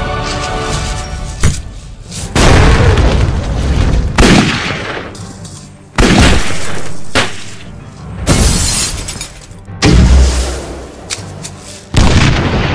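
A run of loud booms, about eight sudden hits a second or so apart, each fading away over a second or two: added explosion and impact sound effects laid over background music.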